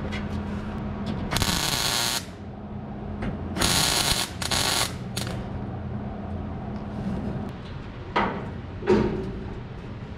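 Welder striking short tack welds on thin sheet-steel floorpan: three brief bursts of arc noise, the first about a second in and two more close together a couple of seconds later. Two short knocks follow near the end, over a steady low hum.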